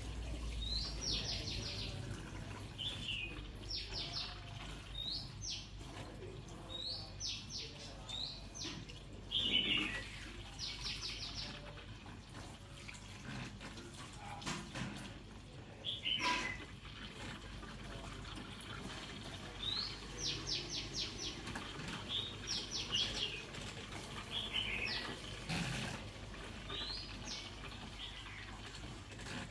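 Bird calling over and over: quick runs of four or five high chirps every second or two, with a few knocks in between.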